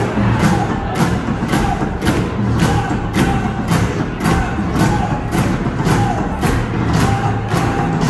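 Dance music with a steady beat, a sharp percussive hit about twice a second.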